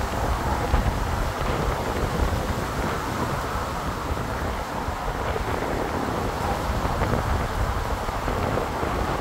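Storm rain falling steadily, with wind gusting over the microphone in a low, uneven buffeting.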